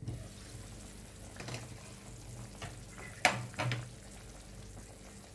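Pan of chicken wings cooking in spiced water, a steady sizzle with a few knocks, the loudest a sharp clink about three seconds in.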